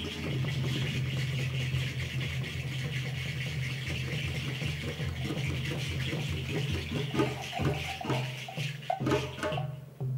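Djembe-led West African hand-percussion ensemble playing an interlocking polyrhythm, with drum strokes over a steady shekere rattle. The shaker drops out near the end, leaving the drum strokes sparser.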